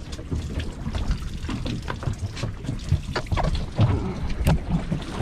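Water splashing and sloshing in uneven small splashes and clicks, over a low rumble.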